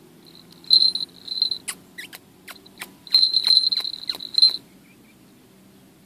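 Falconry bell on a shikra's leg jingling in two bursts of about a second and a half each: a shrill ringing at one steady pitch, with rattling clicks in between.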